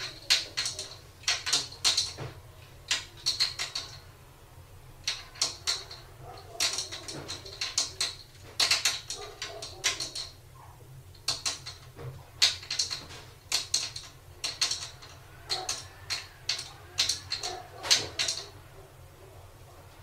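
Cupboard doors rattling and knocking in quick irregular clusters of clicks as kittens paw and pull at them. A plastic child lock across the knobs holds the doors shut, so they only jiggle against it.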